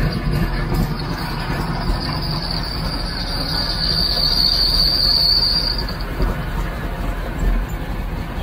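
Supercharged engine running while its accessory drive belt squeals with a high, steady tone. The belt is being dressed with cheap oil and soap, and the squeal stops about six seconds in.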